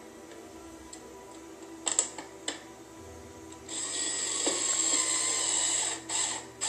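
A few sharp clicks, then a cordless drill runs steadily with a high whine, driving a screw, and ends in short trigger bursts.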